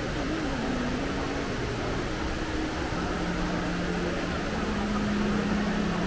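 Busy shopping-mall atrium ambience: a steady, even hiss with an indistinct murmur of many distant voices.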